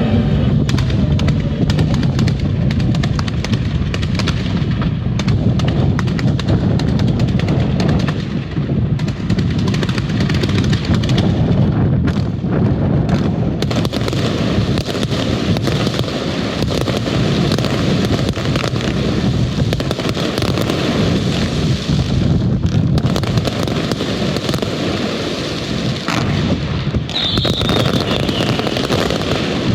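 Aerial fireworks in a dense, continuous barrage, with overlapping booms and crackling shell bursts throughout. A brief high whistle comes near the end.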